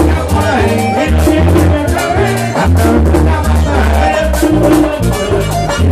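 Live merengue típico band playing: button accordion, saxophone and two-headed tambora drum over a steady bass beat, with busy high percussion.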